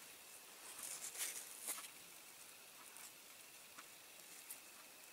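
Faint handling sounds: a few small clicks and rustles of fingers working at a small piece of foam and its double-sided tape, mostly between one and two seconds in.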